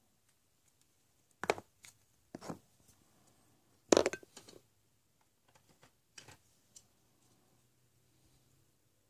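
Hollow plastic surprise eggs and capsules clicking and knocking together as they are handled and snapped open: a few short, sharp plastic clatters, the loudest about four seconds in.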